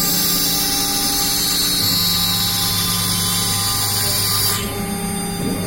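CNC router spindle cutting MDF: a steady machine whine with several held tones and a high hiss that drops away suddenly about four and a half seconds in.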